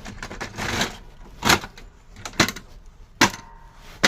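A plastic toner cartridge and toner bottle being handled during refilling: a short rustle, then four sharp plastic knocks about a second apart.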